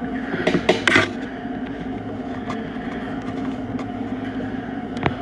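Stationary exercise bike's flywheel whirring steadily under hard pedalling. A couple of short, loud rustling bursts come about half a second to a second in.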